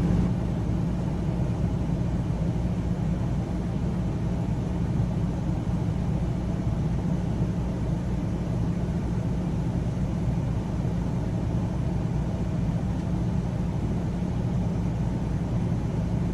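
RV rooftop air conditioner running on high cool: a steady low hum with the rush of its blower fan.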